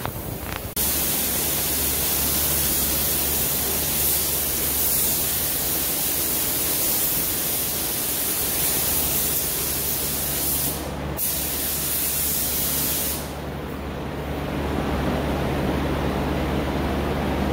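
Harbor Freight Black Widow air spray gun spraying a second coat of paint: a loud, even hiss of air that starts about a second in, breaks off briefly about two-thirds through, then resumes for a couple of seconds before the trigger is released. A steady low hum runs underneath.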